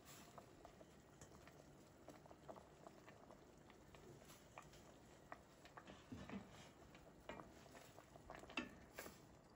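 Faint sounds of fish curry simmering in a stainless-steel pot: scattered small bubbling pops and ticks, with a wooden spoon stirring through the curry. The two loudest sounds come about six and eight and a half seconds in.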